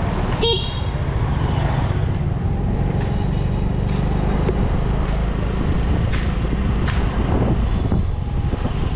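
Yamaha 125 cc scooter riding at low speed, its engine and wind on the microphone making a steady low rumble, with a brief beep about half a second in.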